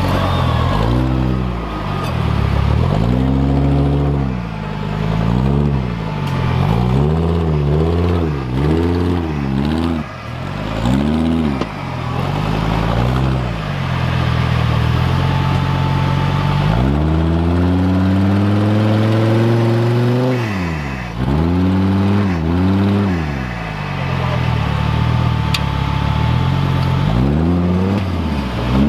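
Off-road racing vehicle's engine revving up and down over and over as it is driven hard, with one long, drawn-out climb in revs about two-thirds of the way through.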